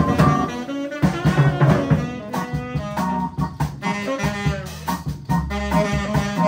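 Live jazz band playing an upbeat funky number: a melody line over drum kit and bass.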